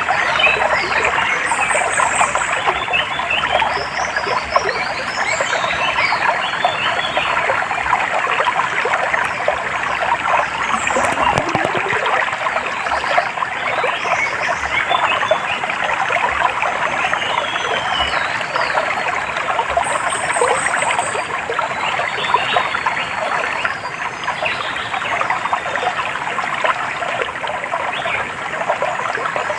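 Water trickling and babbling, steady throughout, with short high bird chirps now and then above it, including a brief falling call about two seconds in and another about twenty seconds in.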